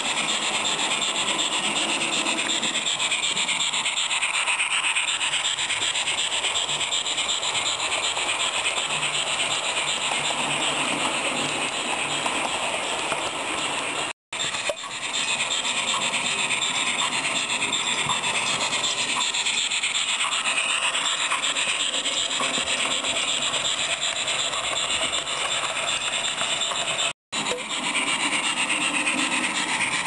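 Roco H0-scale model steam locomotive running with its sound decoder on: a steady, scratchy, hissing steam-engine sound through the model's small onboard speaker, mixed with the running of the wheels on the track. The sound cuts out suddenly for a moment twice.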